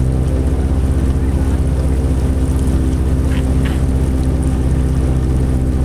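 Boat's outboard motor running at a steady speed under way, an even hum with no change in pitch.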